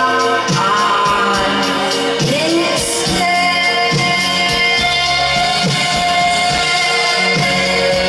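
A dream-pop band playing live: drums keep a steady beat under held keyboard and electric guitar chords, with a sung vocal line over the top.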